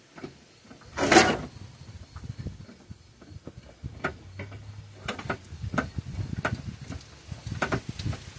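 Metal clanks and knocks of a Ford 302 V8 being worked loose in a truck's engine bay while it is jacked up on an engine hoist: a loud clatter about a second in, then a run of short knocks and clicks.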